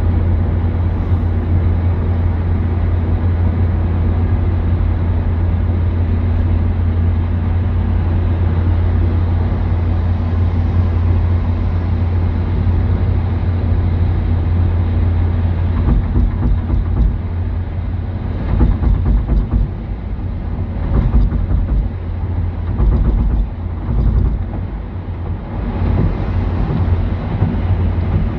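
A car driving along a road: a steady low drone of engine and tyre noise, with uneven low buffeting and thumps from about halfway through.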